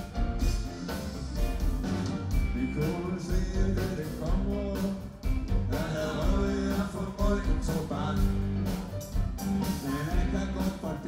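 Live blues-rock band playing: electric guitars, bass and drums keep a steady beat under a wailing harmonica lead.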